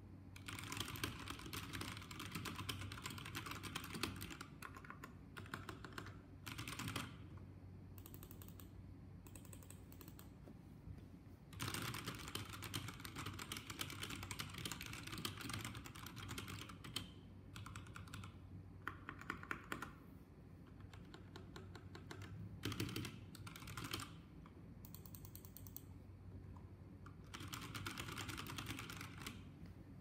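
Typing on an RK61 60% mechanical keyboard with Cherry MX Red linear switches: fast runs of key clacks in bursts of one to five seconds, with short pauses between.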